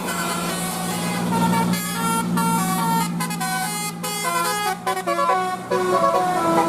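Bus telolet basuri horn playing a quick tune of short notes stepping up and down in pitch, over a steady engine hum.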